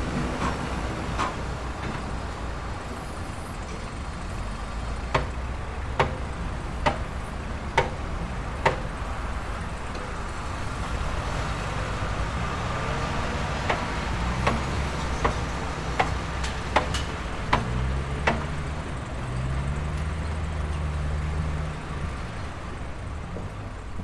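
Construction site ambience: a heavy engine runs low and steady, with sharp knocks cutting through it. Five knocks come about a second apart a few seconds in, and a denser run of knocks comes later.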